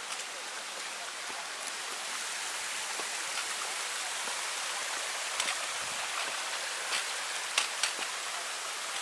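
Steady high hiss of tropical rainforest ambience, with a few sharp clicks and taps in the second half from hikers' footsteps on the trail steps.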